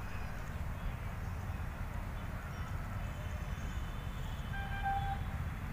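Outdoor ambience: a steady low rumble with faint high chirps, and a short clear note near the end.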